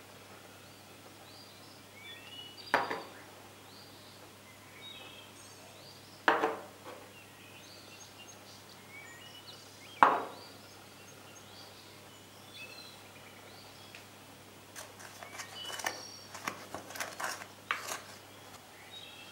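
Small ceramic bowls clink three times, a few seconds apart, as measured ingredients are tipped into the flour and the bowls are set down. Near the end a wooden spoon stirs dry flour in a glass mixing bowl with a run of light clicks and taps against the glass. Faint bird chirps run underneath.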